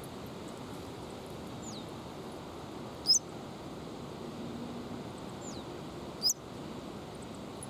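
Steady wind rushing over the microphone, with a small bird giving two short, sharp, high chirps about three seconds apart, each preceded by a faint whistle that falls in pitch.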